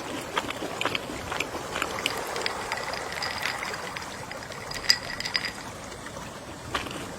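Gentle ocean waves washing as a steady soft hiss, scattered with light clicks and ticks, and a faint thin tone held for a few seconds midway.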